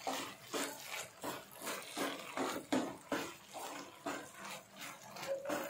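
Spatula stirring and scraping sticky, syrup-coated vermicelli kesari around a nonstick pan, in repeated wet strokes about two to three a second.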